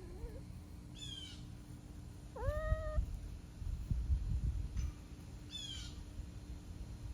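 Animal calls: a quick high call of several falling notes about a second in and again near six seconds, and one rising, then held call around two and a half seconds, over low rumbling.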